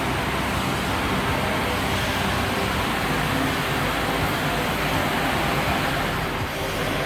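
Steady, even industrial machinery noise from a solar panel recycling line running, with no distinct strokes or pitch changes.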